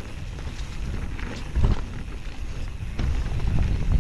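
Mountain bike riding over a leaf-covered dirt trail: tyres rolling over leaves and ground, with scattered knocks and rattles from the bike over bumps and wind rumble on the microphone. A sharp knock comes about one and a half seconds in, and the ride grows rougher and louder near the end.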